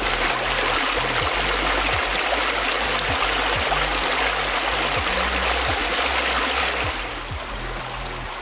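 Small mountain stream rushing and splashing over rocks, a steady noisy rush that gets quieter about seven seconds in. A low beat of background music runs underneath.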